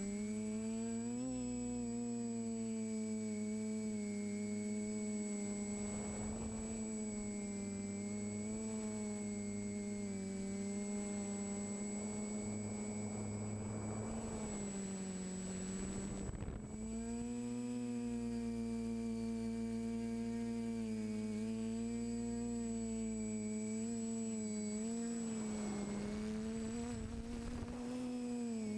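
Quadcopter's brushless motors and propellers humming steadily, heard from the GoPro on board, the pitch rising and falling gently with the throttle. About two-thirds of the way through the hum briefly drops in pitch and level, as if the throttle is chopped, then comes back up.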